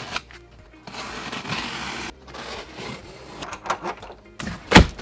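Cardboard shipping box being cut open and handled: a hissing scrape for about a second as a blade runs along the packing tape, then scattered clicks and rustles, and one sharp thump near the end.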